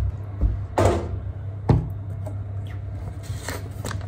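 Kitchen cupboard doors and items knocking and clunking, with two louder thuds about a second and two seconds in and lighter knocks between, over a steady low hum.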